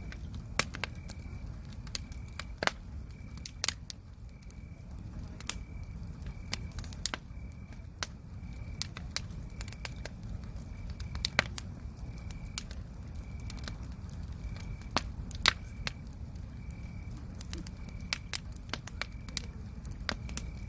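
Wood campfire crackling, with sharp irregular pops of burning logs over a low steady rumble of the flames. A cricket chirps in short, high, evenly repeated pulses throughout.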